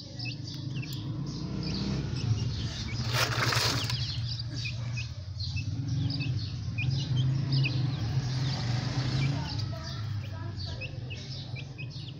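Aseel chicks peeping: a quick, continual string of short, high, falling chirps. About three seconds in, a short rush of noise stands out as the loudest sound. A steady low hum sits underneath throughout.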